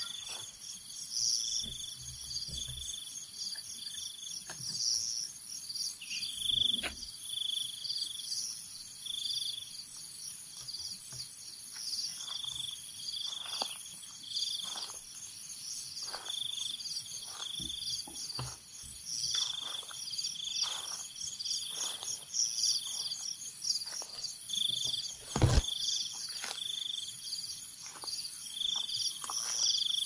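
Footsteps crunching irregularly through dry leaf litter on a forest trail, over a steady high insect drone and repeated high chirping calls. About three quarters of the way through comes a single louder thump.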